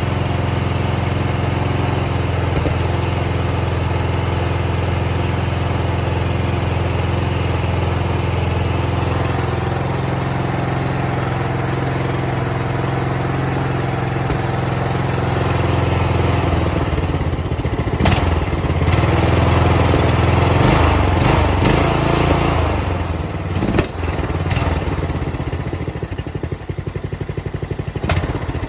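Riding lawn mower's 19.5 hp engine running steadily. About halfway through, its note turns rough and uneven, with a few sharp clicks.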